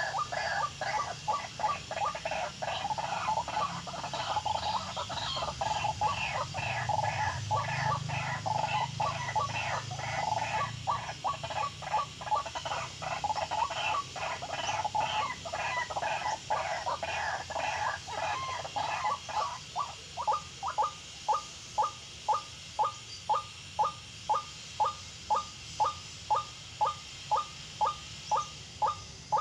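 White-breasted waterhen calling: a busy run of overlapping repeated calls that settles, about two-thirds of the way through, into one very regular series of about two calls a second.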